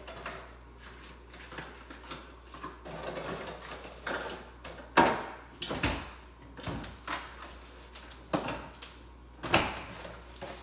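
Kitchen clatter: a series of sharp knocks and bangs, like drawers or cupboard doors shutting and things being handled, the loudest about five seconds in, over a faint low hum.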